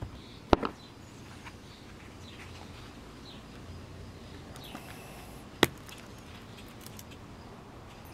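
Two sharp metallic clicks about five seconds apart, the second the louder, as the steel bracelet and clasp of an Invicta dive watch are handled while the watch comes off its cushion, with faint soft handling sounds between.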